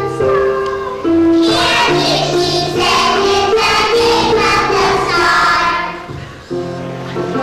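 A group of children singing together over instrumental accompaniment. The voices come in about a second in and drop out near the six-second mark, leaving the accompaniment playing.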